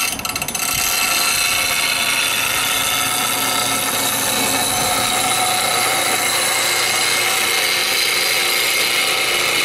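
A steel bowl gouge is held against the wheel of a slow-speed Rikon bench grinder (1725 rpm, half horsepower), making a steady grinding hiss over the motor's hum as its bevel is ground. The sound cuts off suddenly at the end.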